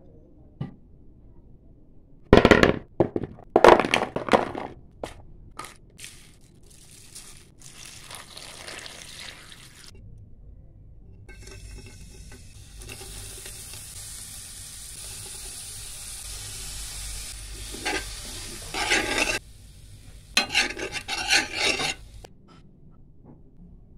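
Loud clattering knocks of a utensil on cookware a few seconds in. From about halfway through, a steady sizzle of chopped garlic frying in an iron pan, followed near the end by a spoon scraping and clattering as chopped chillies and onion are stirred in the pan.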